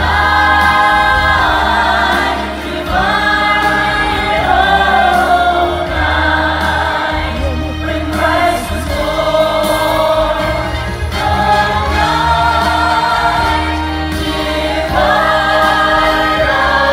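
Choir singing with instrumental backing: long held notes in several voices over a steady low bass line.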